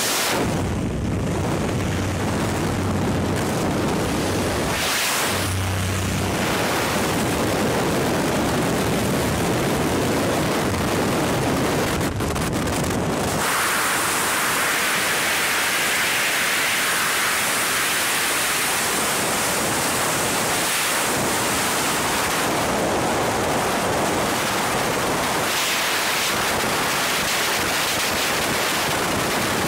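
Freefall wind rushing over the camera's microphone: a loud, steady rush of air. About a dozen seconds in, it turns brighter and hissier.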